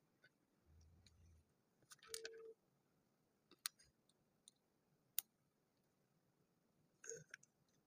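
Interlocking plastic building blocks clicking as pieces are handled and pressed together: a few sharp, separate clicks spread over several seconds. There is a short steady beep about two seconds in.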